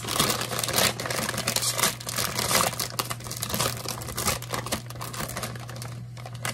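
A paper chip bag crinkling and crackling as it is handled and torn open. The dense crackle is loudest in the first few seconds and eases off near the end.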